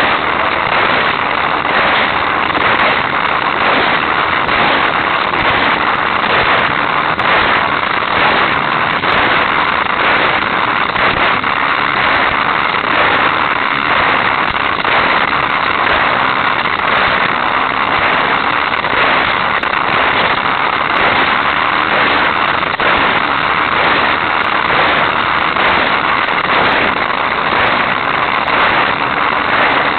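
Hot Wheels Sizzlers electric toy race car running at speed along its plastic track, heard from a keychain camera riding on the car: its small motor and wheels make a steady loud noise.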